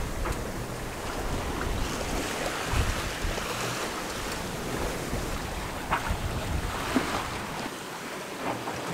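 Sea and wind noise aboard a sailboat under way: a steady wash of waves and water with wind buffeting the microphone, and a couple of short knocks about six and seven seconds in.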